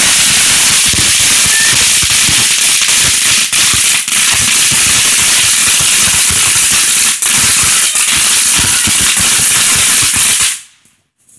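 Ground fountain firework spraying sparks with a loud steady hiss and dense, rapid popping. It cuts off abruptly as the fountain burns out, about ten and a half seconds in.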